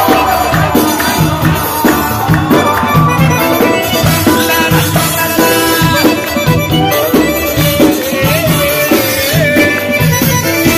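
Live band music played loud over a concert sound system, with accordion and guitar over a steady, regular bass beat.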